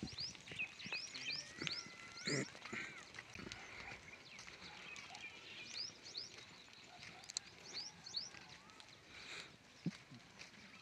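A herd of goats on the move, with one loud bleat about two seconds in and short high chirps of small birds repeating throughout.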